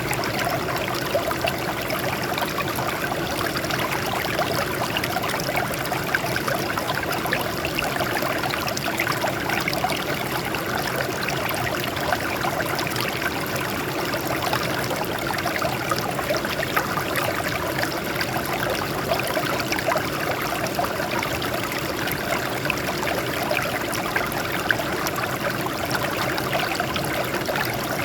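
Water flowing and trickling over rocks: a steady babble with fine splashes and no change in level.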